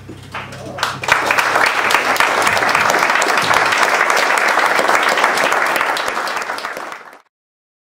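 Audience applauding at the end of a jazz tune: the band's last low note dies away under a few scattered claps, which swell within about a second into full applause. The applause cuts off abruptly near the end.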